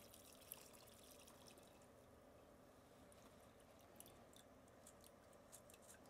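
Faint trickle of liquid pouring through a fine mesh strainer into a metal pot, tapering to a few scattered drips in the second half.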